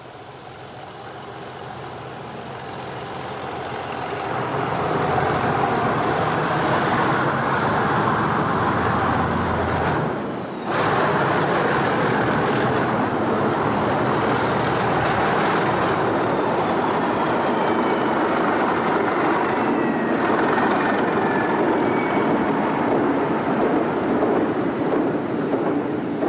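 A Class 37 diesel locomotive with an English Electric V12 engine works hard up a gradient at the head of a loaded coal train, growing louder as it approaches and goes by. A high whistle falls in pitch as it passes. The hopper wagons then rumble past behind it.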